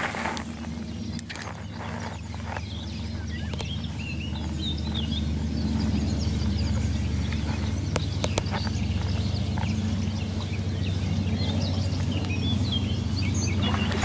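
Small birds chirping and calling in many short notes over a steady low hum, with a few sharp clicks.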